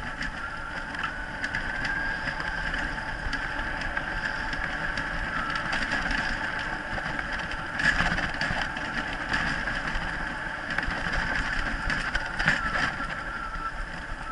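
Wheels of a dog-drawn mushing rig rolling over a dirt forest trail, with wind on the microphone and the rig rattling and knocking; a louder clatter comes about eight seconds in and again near the end. A steady high whine runs underneath.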